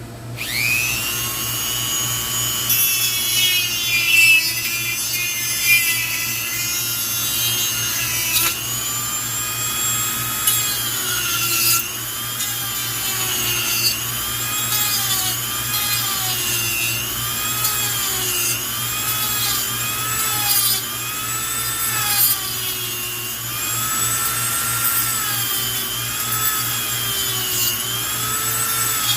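A small high-speed power tool spins up and cuts into a turn signal relay's casing, its high whine dipping in pitch and recovering over and over as the cut loads the motor.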